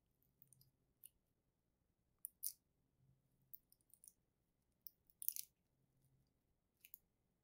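Faint, scattered crackles and clicks of thin protective plastic film being picked at and peeled off a new LED monitor light bar, the loudest about two and a half and five seconds in.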